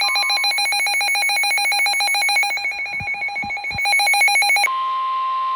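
Electronic emergency alert signal from a NOAA Weather Radio broadcast: a rapidly pulsing, trilling tone that switches about three-quarters of the way through to one steady tone, the 1050 Hz warning alarm tone that comes before a warning message. A few low thumps sound just before the switch.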